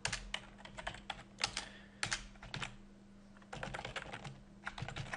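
Typing on a computer keyboard: runs of quick keystrokes, with a pause of about a second near the middle.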